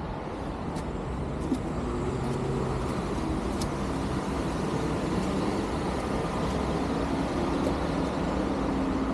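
Steady low rumble of road traffic below, with the faint hum of a vehicle engine running through most of it.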